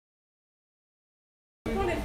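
Dead silence, then near the end a short fragment of sound that cuts in abruptly, with a low rumble under it.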